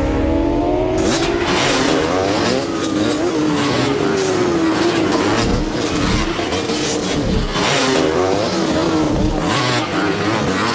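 Racing motorbike engine sound effects from an animation: several engines whining and revving, their pitch sliding up and down. Several brief rushes of noise come through as the bikes go by.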